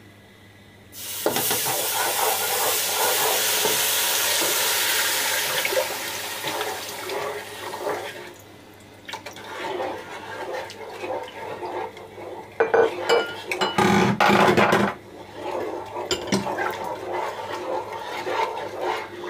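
Boiled milk poured into a hot pan of browned sugar and ground nuts, hissing and sizzling loudly for about six seconds. A wooden spoon then stirs and scrapes the pan, with a few loud knocks about thirteen to fifteen seconds in.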